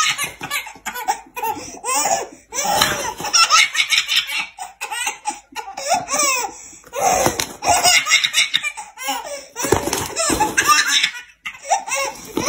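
Baby laughing hard: belly laughs in repeated bouts separated by short pauses.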